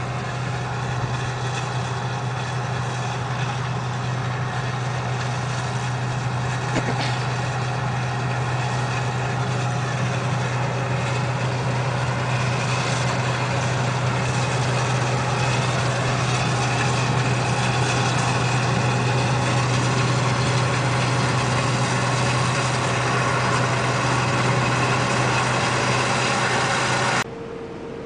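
Heavy farm-vehicle engine running steadily at idle, a deep constant hum with a wash of mechanical noise above it, slowly getting a little louder. It cuts off abruptly about a second before the end, leaving a quieter steady hum.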